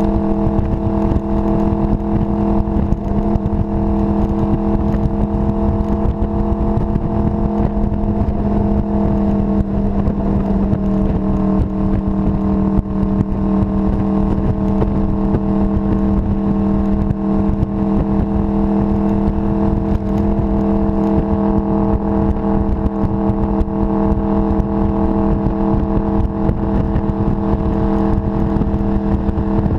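Honda VFR800's V4 engine running at a steady highway cruise, its pitch holding nearly constant apart from a slight shift about ten seconds in, under heavy low wind rumble on the microphone.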